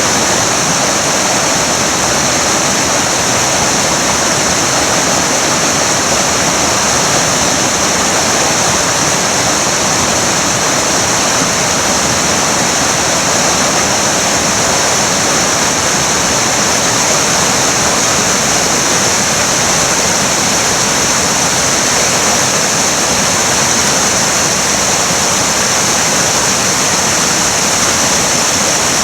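River water rushing, a loud, steady noise that does not let up.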